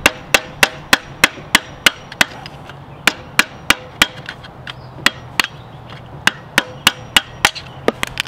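Hammer tapping a flat-blade screwdriver under the lip of a rear differential's pinion seal, about three sharp metallic taps a second to work the seal loose; the taps thin out and stop near the end.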